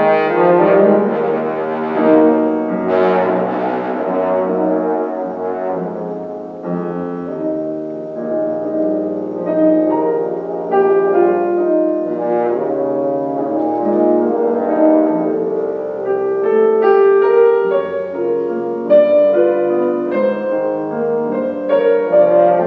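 French horn playing a low-register part with piano accompaniment, a continuous run of changing notes. In the second half the notes become shorter and more detached.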